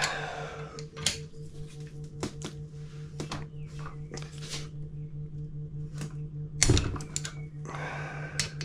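Irregular metallic clicks and clinks of hand tools working on an engine block while the piston oil squirters are being removed, with one louder knock about seven seconds in, over a steady low hum.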